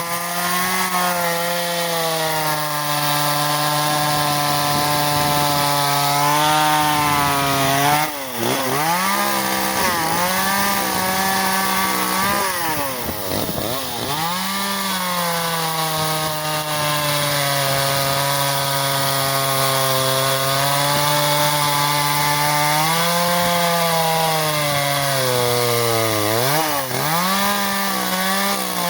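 Echo CS-370 two-stroke chainsaw running at high revs while cutting wood, its engine pitch sagging slowly under load. Three times, about 8, 13 and 26 seconds in, the engine note drops sharply and then revs back up.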